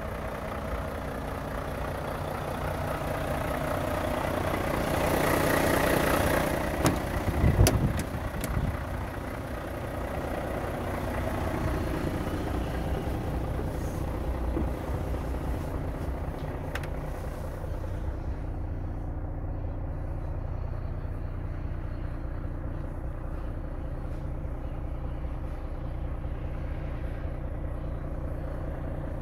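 Renault T480's 13-litre straight-six diesel idling steadily, with a few sharp clicks and knocks about seven to eight seconds in from the cab door and climbing aboard. From about eighteen seconds in, the idle is heard muffled from inside the closed cab.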